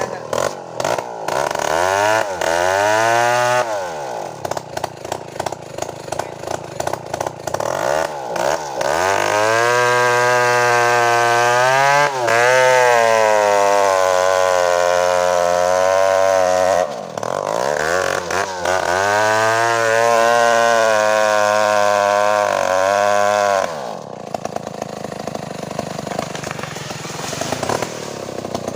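Two-stroke chainsaw running with a short rev near the start, then two long full-throttle runs whose pitch sags slightly while held, as in cutting, dropping back toward idle between them and near the end.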